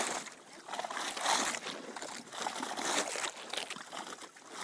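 Water sloshing and trickling beneath a wooden dock and welling up through the gaps between its boards, in uneven splashes.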